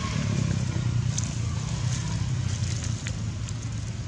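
A motor engine running steadily, heard as a low rumble, with a few faint crackles over it.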